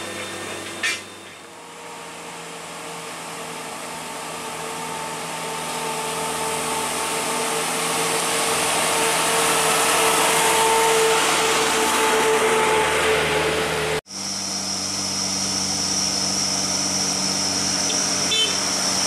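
Heavy diesel truck engines labouring up a steep grade, one growing steadily louder as it comes close. The sound cuts abruptly about 14 seconds in to other trucks' engines under load, with a steady high whine over them.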